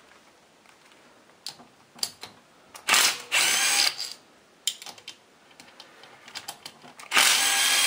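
Socket ratchet undoing the engine's side-cover bolts: two bursts of rapid ratchet clicking, about a second each, one near the middle and one near the end. A few light metallic taps come between them.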